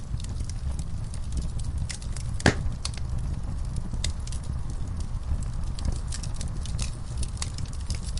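Campfire burning: wood crackling with scattered sharp pops over a steady low rumble. One loud pop about two and a half seconds in.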